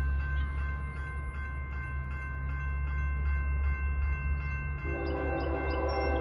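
Grade-crossing warning bell ringing as the crossing gate arm lowers, over a low rumble from the approaching freight train. About five seconds in, the lead Norfolk Southern diesel locomotive's multi-chime air horn starts sounding a steady chord.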